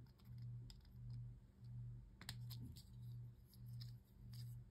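Faint clicks of hard plastic model parts being handled and cut off a sprue frame with hobby snips, the sharpest click about two seconds in, over a low hum that pulses about one and a half times a second.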